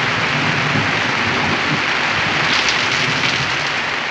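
Steady rushing hiss of water.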